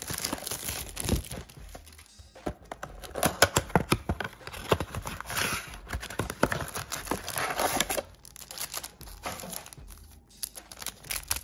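Plastic shrink-wrap crinkling and tearing as it is stripped off a cardboard trading-card blaster box, then the box's cardboard flaps being pulled open. The crackling comes in spells, with short quieter gaps.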